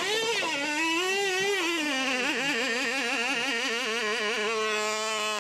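A 1/16-scale micro mini pulling tractor's small motor whining under load as it drags the weight sled. The high pitch wavers rapidly and drops about two seconds in, then holds steady and lower near the end as the motor labours against the sled's growing weight.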